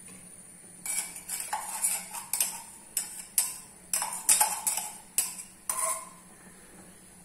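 Steel ladle clinking and scraping against a stainless steel tumbler as thick coconut milk is scraped out of it. A dozen or so quick, ringing metal clinks, starting about a second in and stopping about six seconds in.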